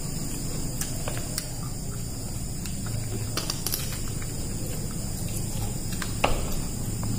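Soft clicks and taps of people eating with their hands from plates, with one sharper tap on a plate a little over six seconds in, over a steady low hum.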